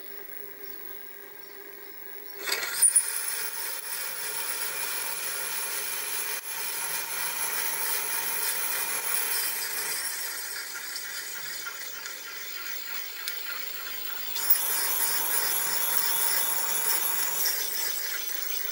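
Sieg SX2P mini mill spindle running at 200 RPM with a steady motor whine. About two and a half seconds in, a 5/16 in reamer starts cutting through a drilled hole in a cast-iron engine bedplate, and a continuous metal-scraping noise sets in. The scraping grows louder again about fourteen seconds in and eases off near the end.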